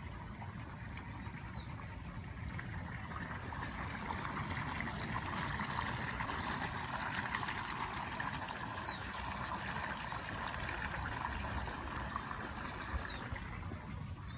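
Water trickling steadily, swelling a little midway, with a bird giving a short high falling chirp three times.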